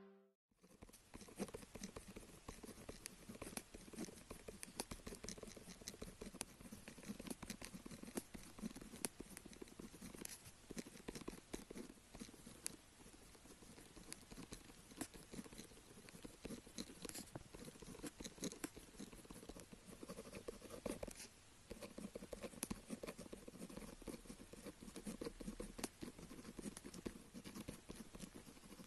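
Pen tip scratching on paper in quick continuous writing strokes, with a brief pause about two-thirds of the way through.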